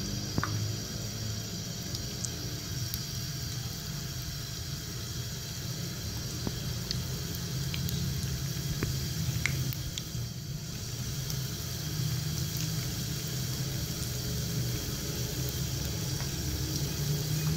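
Potato-and-onion pakora batter deep-frying in hot cooking oil in a nonstick pan: steady sizzling and bubbling with scattered small crackles, over a low steady hum.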